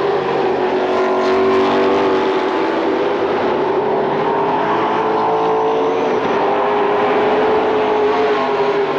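Several late model stock cars racing at speed, their V8 engines blending into a continuous loud drone whose pitch wavers slightly.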